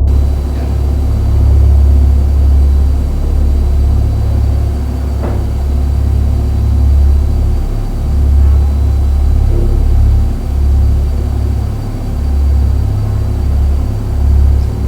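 A loud, deep low rumble that swells and fades every second or two, with a faint click about five seconds in.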